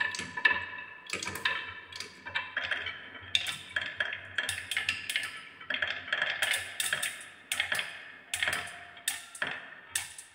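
Marbles rolling along a carved wooden wave track and down a wooden multi-lane slope. They make rapid, irregular clicks and clacks as they knock against the wood and against each other, bunching up against a wooden stopper.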